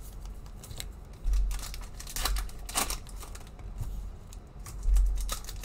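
Plastic trading-card pack wrappers crinkling and tearing as packs are handled and ripped open, with scattered sharp crackles and a couple of dull bumps against the table.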